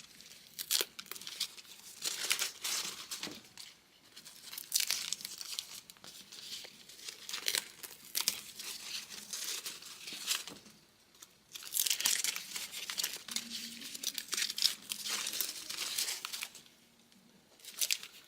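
Electrical tape being peeled and unwound off a factory Chrysler engine wiring harness, ripping in irregular stretches, while the plastic split loom crinkles as it is handled. There are short pauses about 4, 11 and 17 seconds in.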